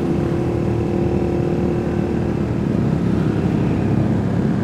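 Suzuki GSX-R150's 150 cc single-cylinder engine running steadily at low road speed, about 30 km/h, with road noise and other motorcycles around it.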